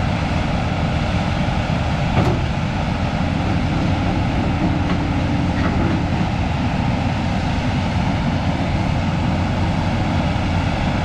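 Diesel engine of a JCB 215LC tracked hydraulic excavator running steadily under load while the boom pushes the bucket down and lifts the machine on its tracks. One sharp knock comes about two seconds in.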